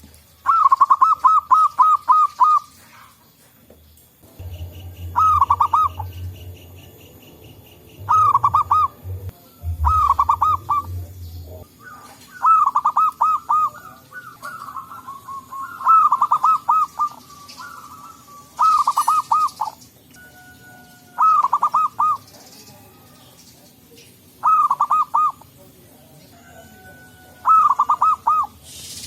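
Zebra doves (perkutut) cooing: about ten short phrases of rapid, trilling staccato notes, each a second or two long, repeated every few seconds.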